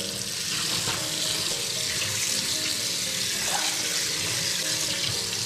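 Kitchen faucet running a steady stream of water into a stainless steel sink, splashing onto a fish lying in the basin.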